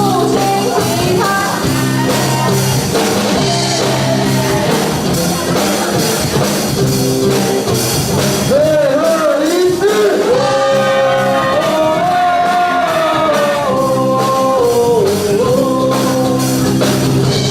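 A song: a singing voice with vibrato over steady band accompaniment. The sung melody is loudest in the second half.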